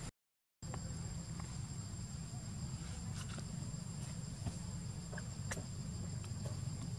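Insects droning steadily in two high tones over a low rumble, with a few faint ticks; the sound drops out completely for about half a second right at the start.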